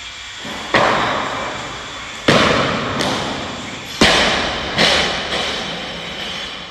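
A loaded barbell with iron plates hitting the lifting platform, with four loud clanging impacts spread over about four seconds, the bar and plates ringing out with a long echo after each.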